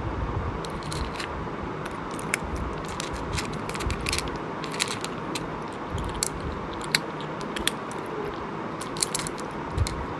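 Close-miked chewing and biting of cooked sheep's head meat and brain: irregular sharp wet clicks and crunches over a steady low background.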